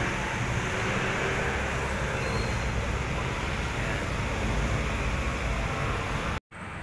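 Steady outdoor road-traffic noise, a low rumble with a hiss, that drops out abruptly for a moment near the end.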